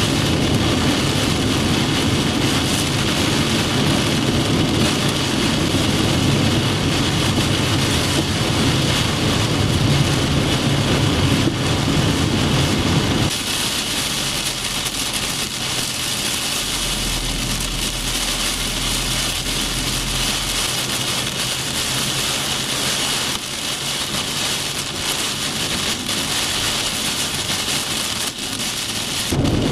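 Heavy rain and strong wind on a moving car, heard from inside: a steady dense rush of rain, wind and tyre spray on a wet highway with engine and road rumble. About halfway through the sound changes abruptly, losing much of its low rumble.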